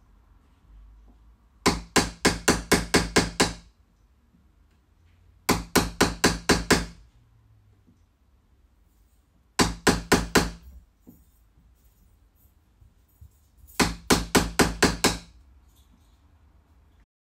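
A hammer tapping a wood chisel into a door edge to cut the mortise for a lock, in four quick runs of five to nine strikes at about four a second, with pauses between the runs. The first cuts are kept shallow so as not to split or chip the painted door.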